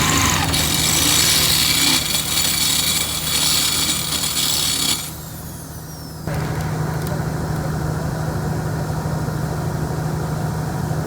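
A power tool rasps loudly on metal for about five seconds and cuts off suddenly. After a short lull, a steady low machine hum, like an engine idling, carries on.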